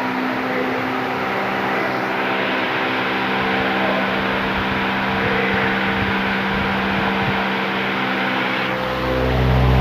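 Large 70 cm, 270 W pedestal fan running: a steady motor hum under the rush of air from the blades. Near the end the air noise above thins out and a deeper, louder low hum takes over.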